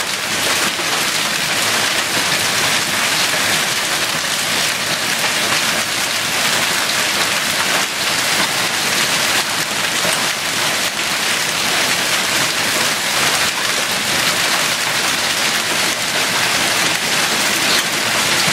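Hail and heavy rain pelting a concrete backyard: a steady, dense hiss of countless small impacts that keeps up without a break.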